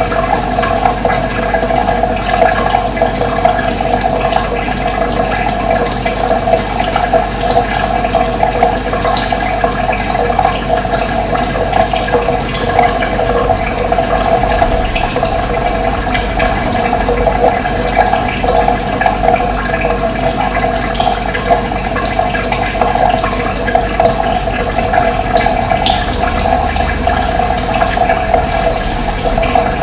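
Steady rush of flowing water, with small birds chirping briefly now and then in the background.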